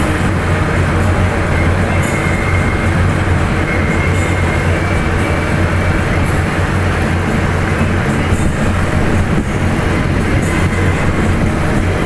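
Column of military trucks passing at parade pace, their engines making a steady low drone.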